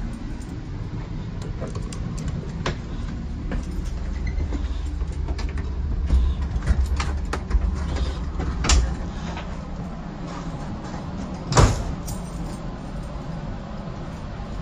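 Steady low rumble inside a bilevel commuter rail car, heavier for a few seconds midway, with scattered clicks and rattles and one sharp knock about twelve seconds in.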